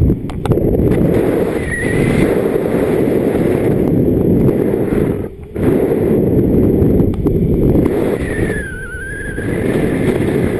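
Airflow buffeting the microphone of a camera mounted on a flying paraglider, a loud rumbling rush that dips briefly about halfway through. A thin whistle dips in pitch and rises again near the end.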